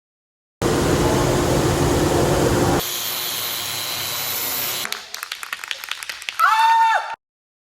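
Woodshop power tools heard in quick edited cuts: a loud tool running for about two seconds, then a quieter running sound, then a run of sharp clicks and taps. It ends with a short pitched tone that bends, cut off abruptly.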